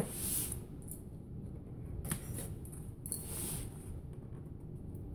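Hands handling a cardboard box: a sharp tap at the start, then a few soft scrapes and rustles of skin and tools on the cardboard.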